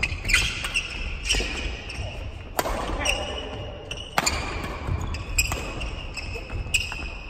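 Badminton doubles rally: about six sharp racket-on-shuttlecock hits, roughly a second apart, with shoe squeaks and footfalls on the wooden court floor, echoing in a large sports hall.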